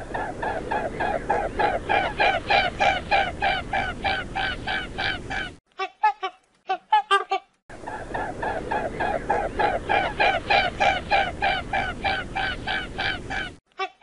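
Swan calling in a fast run of honks, about three or four a second. The run breaks off about halfway, a few scattered calls follow, and then the same run of honks starts again.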